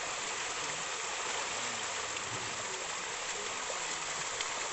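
A dense crowd of fish thrashing and splashing at the surface of a pond, making a steady rushing, churning splash of water.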